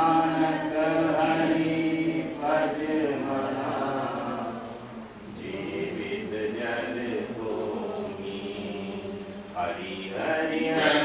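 Devotional bhajan chanted by a group of voices, sung in long held phrases with short breaks between them, over a steady low drone.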